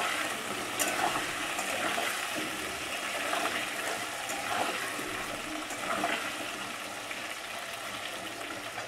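Potato chunks frying in hot oil in a steel wok, a steady sizzle, with a steel spatula scraping and clinking against the pan now and then.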